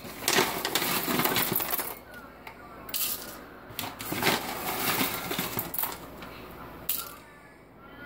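Whole coffee beans pouring from a paper bag and clattering into the hopper of a manual coffee grinder, in several pours of one to two seconds each.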